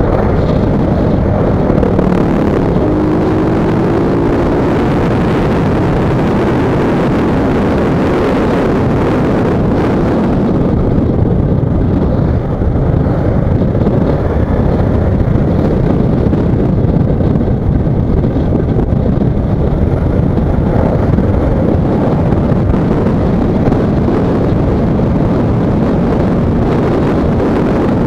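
Steady rush of wind over the microphone mixed with the running engine of a Honda CBR sport motorcycle cruising at road speed, with a brief rising engine tone a few seconds in.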